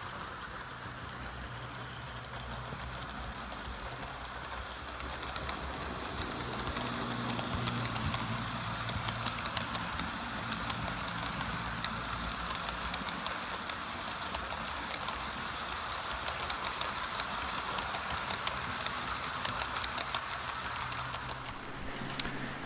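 HO scale model train running on its track: the Proto 2000 E6A diesel model's motor hums steadily while the wheels of it and the passenger cars tick over the rails. It grows louder a few seconds in, eases off near the end, and a single sharp click comes just before the end.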